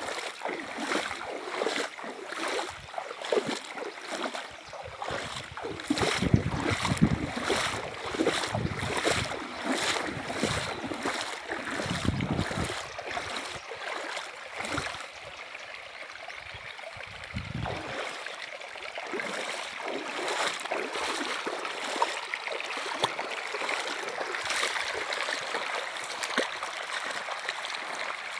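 Running river water, with splashing that comes in quick, regular pulses through the first half and a few low rumbles in the middle.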